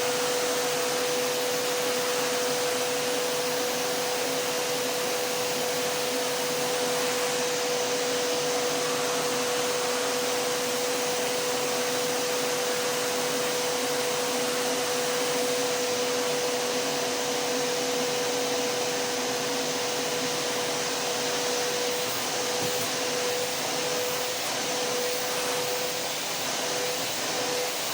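Vacuum cleaner running steadily: a dense rushing air noise with a steady motor whine. In the last few seconds the whine wavers on and off.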